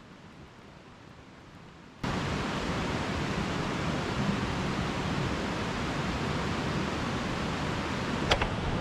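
Steady rushing of river water, coming in abruptly about two seconds in after faint, quiet ambience. A brief, sharp, high-pitched sound comes near the end.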